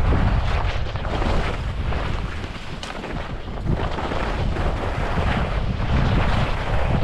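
Wind buffeting a GoPro Hero12's microphone during a downhill ski run, with the rushing hiss and scrape of skis on snow swelling and easing through the turns.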